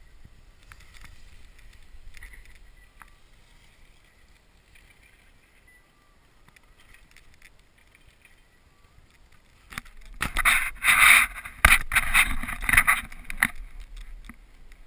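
Skis scraping and skidding hard on snow close to the camera, loud for about four seconds in rough surges, after a long stretch of faint rustle.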